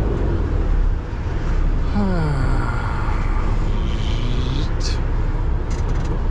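Semi truck's diesel engine running under steady road rumble. About two seconds in, its pitch falls as the revs drop, then holds steady. A brief sharp sound comes near the end.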